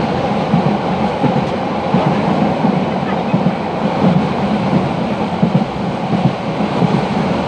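Passenger train running at speed, heard from inside a carriage at the window: a steady rumble of wheels on the rails with irregular clattering jolts.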